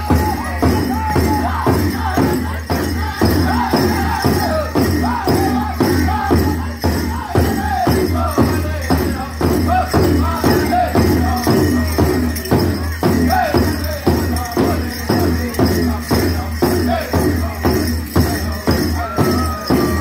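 Powwow drum group singing a grass dance song: several men singing high-pitched vocables over a big drum struck in a steady, even beat, about three beats a second. Near the end a lead voice glides down from a high note.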